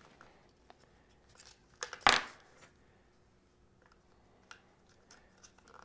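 AAA batteries being pressed into a small plastic pocket radio's battery compartment: light plastic clicks and handling noise, with one sharp snap about two seconds in.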